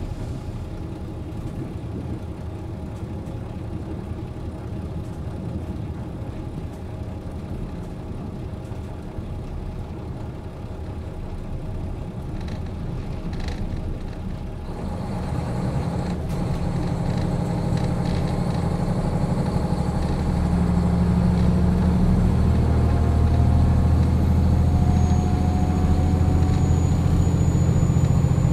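JR Hokkaido KiHa 40 diesel railcar's engine idling while the car stands at a platform. The drone grows louder about halfway through and then holds steady.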